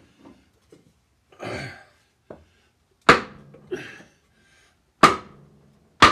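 Three sharp knocks, about two seconds and then one second apart, each ringing briefly: a wooden block held against a Caterpillar Sixty's water manifold is struck to nudge the manifold sideways toward the cylinders and close the gaps at its joints.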